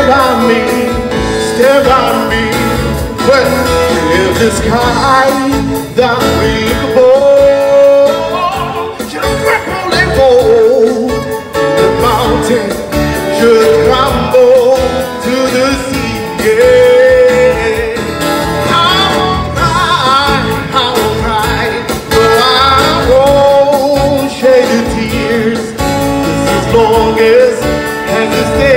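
A man singing a song into a microphone, accompanied by an acoustic guitar, in a live street performance.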